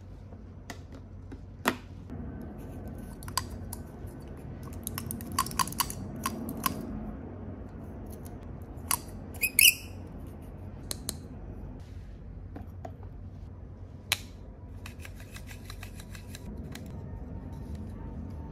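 Small hard plastic toy pieces clicking, tapping and rubbing together as they are handled: a toy hairbrush and toy nail polish bottles with snap-on plastic caps. Sharp single clicks come every few seconds, with a brief squeaky scrape about halfway through.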